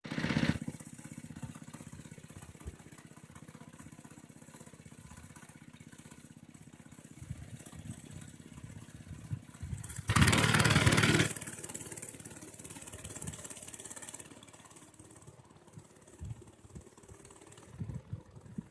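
A Motovox minibike's small single-cylinder engine running at a steady fast putter after a loud first half second. About ten seconds in it is revved hard for just over a second, then it fades as the bike rides off.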